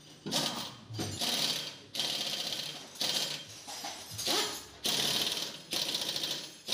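Pneumatic impact wrench hammering on a car wheel's lug nuts in a string of short bursts, about one a second, each under a second long, as the nuts are run down and tightened on the refitted wheel.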